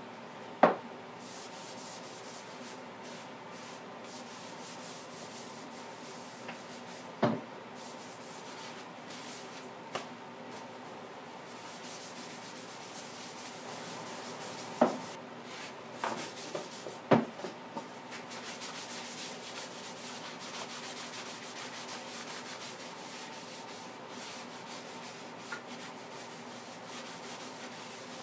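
Hand-sanding a wooden guitar body with sandpaper: a continuous scratchy rubbing of paper strokes on the wood. A few sharp knocks cut in, the loudest sounds, scattered through the first two-thirds.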